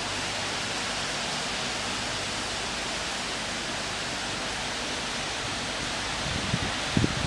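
Heavy rain pouring down in a violent windstorm, a steady, even hiss. Near the end a few louder low thumps break in, the wind gusting onto the microphone.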